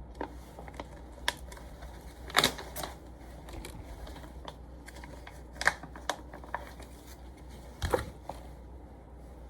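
Scattered light clicks and taps of small objects being handled, with a few louder knocks, over a low room hum.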